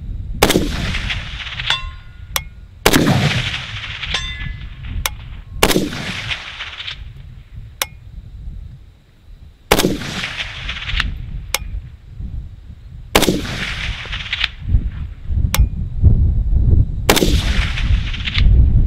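WBP Fox AK-pattern rifle in 7.62x39 firing Wolf 124gr 8M3 hollow-point rounds slow and aimed: six single shots a few seconds apart, each echoing away over about a second. Faint sharp ticks and short metallic pings come between some of the shots.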